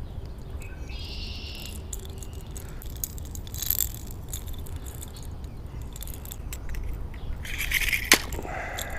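Wind rumbling on the microphone, with a short high bird chirp about a second in and scattered small clicks and rattles. The loudest is a sharp click near the end.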